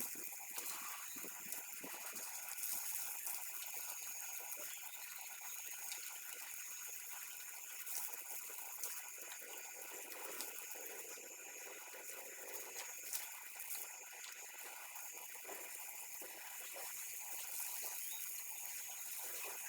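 Water from a hose pipe spraying onto a bike as it is washed: a steady hiss of spray with scattered splashes.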